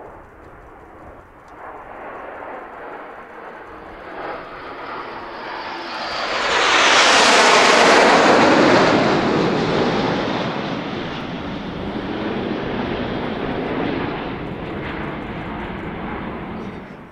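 A formation of Red Arrows BAE Hawk T1 jets passing overhead: jet engine noise builds to its loudest and sharpest about seven seconds in as the formation comes over, then fades slowly as it moves away.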